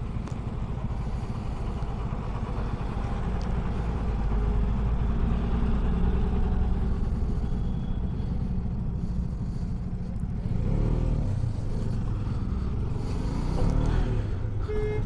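Husqvarna motorcycle engine running at low speed as it filters through stopped traffic. It keeps a steady low rumble, and the engine note swells and rises briefly twice, a little past the middle and again near the end.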